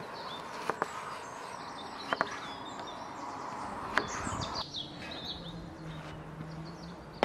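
Chef's knife slicing an onion into half rings and tapping the wooden cutting board a few times, with birds chirping in the background.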